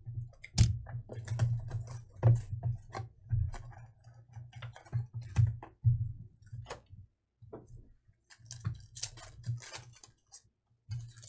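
A cardboard trading-card hobby box being torn open and its foil card packs handled, with irregular tearing, crinkling and clicking and dull knocks on the table. The handling goes quieter for a moment past the middle, then picks up again.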